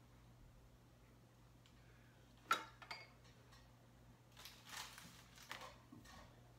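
Light handling sounds of a spatula on a plastic mixing bowl of brownie batter: one sharp tap about two and a half seconds in, a softer tap just after, then a few faint scrapes. A faint steady hum lies under it all.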